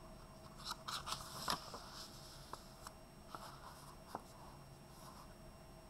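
A page of a paperback picture book being turned by hand: faint paper rustling and soft clicks, loudest about a second in, then a few light ticks as the page is smoothed down.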